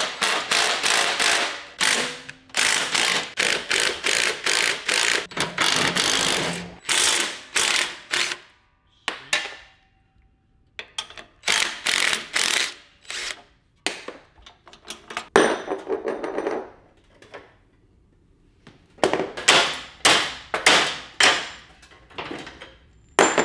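Cordless impact driver running in a string of short bursts with a couple of pauses, hammering bolts loose on a steel lawn mower chassis.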